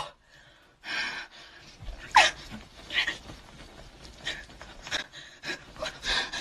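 A woman's breathing: irregular gasps and breaths about once a second, with a short falling whimper about two seconds in, after a sharp click at the very start.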